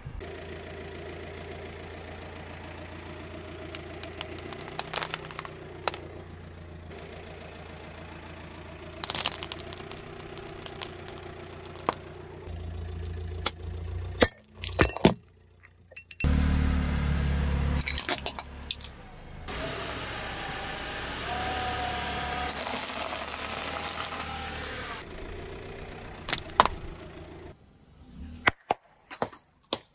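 Car engine idling as its tyre rolls slowly over objects on pavement, with clusters of sharp crunching and cracking as they break under the wheel. The engine grows louder for a few seconds about midway.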